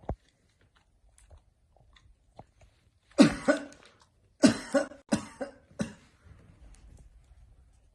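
A person coughing in two bouts: a pair of coughs about three seconds in, then about four more between four and a half and six seconds.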